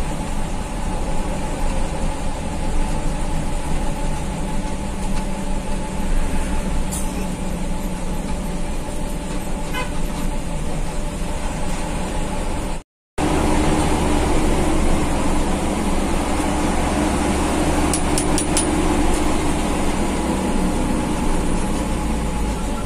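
Mitsubishi-engined coach running along the road, heard from inside the passenger cabin: a steady engine hum over road noise, with a brief break about halfway through.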